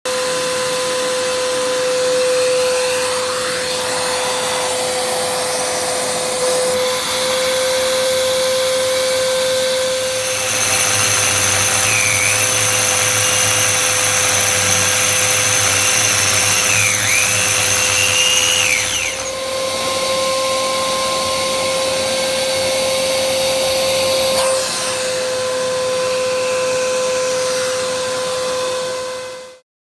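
Vacuum cleaner running steadily, connected to a dust-extraction drilling attachment. For about eight seconds in the middle, a power drill bores into the wall, louder and noisier, its pitch dipping twice under load.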